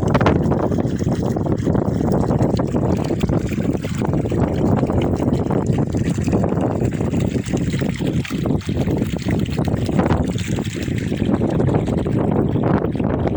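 Water gushing steadily from the outflow pipe of a self-flowing artesian well, about 300 m deep: a continuous rushing noise.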